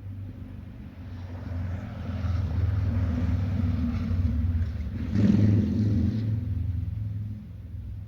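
A motor vehicle passing by, its engine hum and tyre noise building up, loudest a little past halfway, then fading away.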